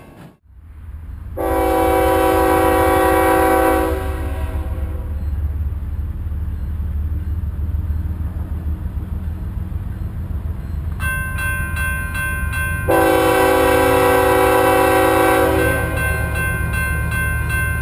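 Diesel freight locomotive's air horn sounding two long chords, one about 1.5 s in and another about 13 s in, over the low rumble of the approaching train. About 11 s in a grade-crossing warning bell starts ringing steadily.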